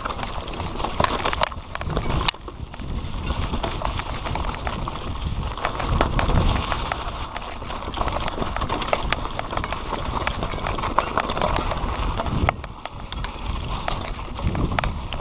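Mountain bike ridden fast down a bumpy dirt singletrack: tyres rolling over dirt, with chain and frame rattling in many small clicks over the bumps and a steady rumble of rushing air on the microphone. The noise dips briefly twice, about two seconds in and near the end.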